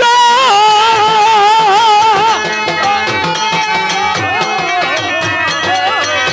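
Live folk-drama music: an ornamented melody with a constant wavering in pitch, carried by a high voice, over a drum and a fast, steady ticking percussion.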